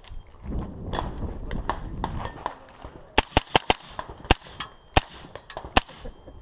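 Rifle shots: about seven sharp cracks in the second half, the first four in quick succession, then slower. Before them, a low rumbling handling noise.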